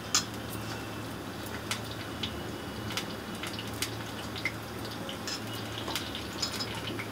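A hand rubbing dry flour with carom seeds and salt in a stainless steel bowl: faint rubbing with scattered light clicks, over a low steady hum.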